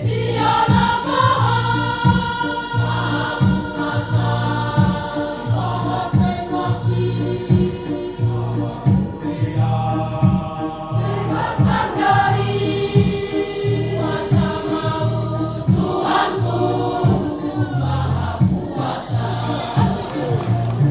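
Youth choir singing in several parts, with a steady low-pitched beat repeating underneath.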